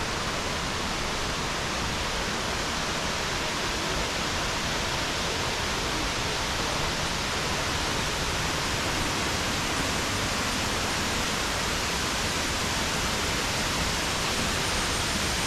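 Waterfall's steady rushing of falling water, an even unbroken hiss.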